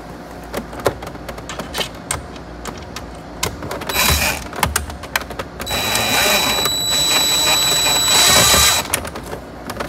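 Cordless drill-driver driving bolts into a double-DIN dash kit: a short run about four seconds in, then a steady run with a high whine lasting about three seconds that stops suddenly. Clicks and light knocks of handling come between the runs.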